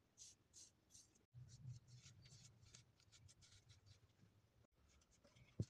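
Faint, repeated rubbing strokes of fingers working finish into a wooden air-gun stock, with a low hum underneath for most of it and one sharp knock near the end.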